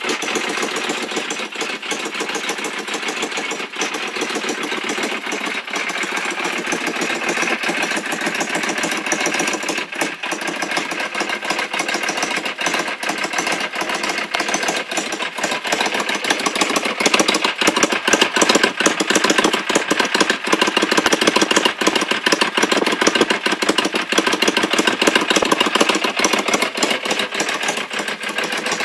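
Yamaha Virago 535 V-twin engine running through a drilled-out exhaust muffler, giving a louder, deeper exhaust note. It gets louder a little past halfway.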